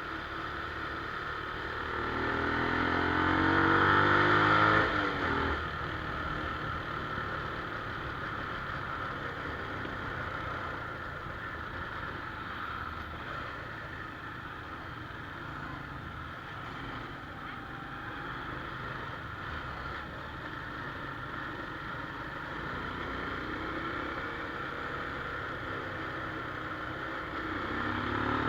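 Honda Wave 110i's small single-cylinder four-stroke engine revving up, its pitch climbing for a few seconds before dropping back suddenly. It then runs steadily at lower revs until it climbs again near the end.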